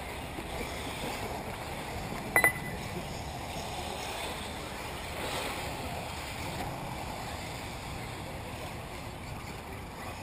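Steady wind and outdoor noise, broken about two and a half seconds in by a short, loud double beep.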